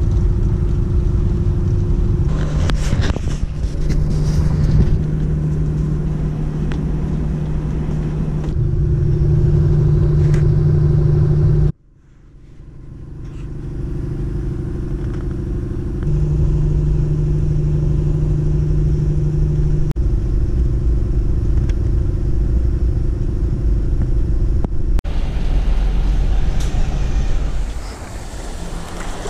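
Steady low rumble and engine drone heard from inside a moving vehicle. It cuts off sharply about twelve seconds in and fades back up. Near the end come wind on the microphone and breaking surf.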